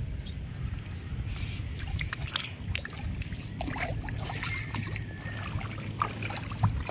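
Shallow seawater sloshing and splashing, with scattered small clicks and knocks.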